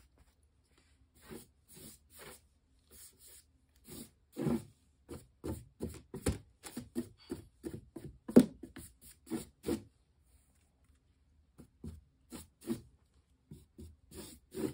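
Paintbrush scrubbing and scraping across a textured canvas in short, irregular strokes, stopping briefly about ten seconds in before starting again.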